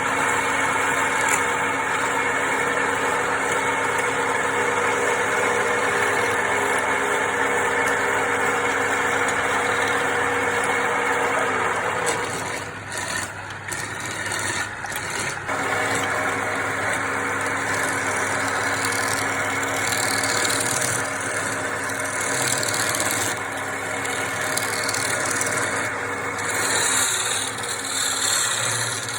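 Wood lathe running with a steady motor hum and noise; the hum breaks off for a few seconds about halfway through, then comes back.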